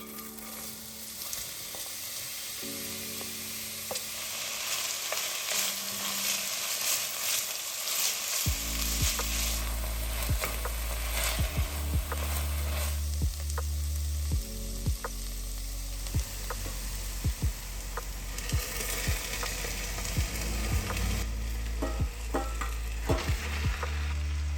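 Food sizzling in a hot pan, with repeated short clicks of a utensil stirring it. Soft background music with a steady low bass comes in about a third of the way through.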